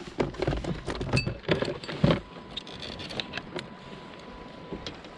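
Handling noise as a small caught rockfish and the fishing tackle are held and worked in the hands: a run of clicks and knocks with a few low thumps, loudest about two seconds in, thinning to light ticks after about three and a half seconds.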